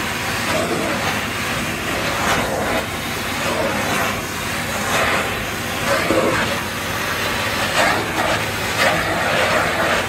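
Vacuum cleaner running steadily, its noise swelling and easing unevenly.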